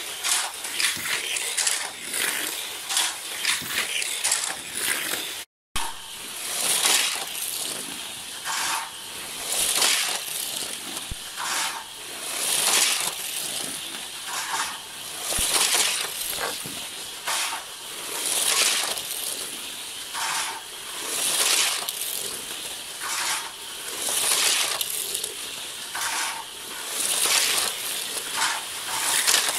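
Matchbox Scorpion toy cars with rewound electric motors running on plastic track: a rattling, clattering whir that swells and fades about every three seconds. It cuts out briefly about five seconds in.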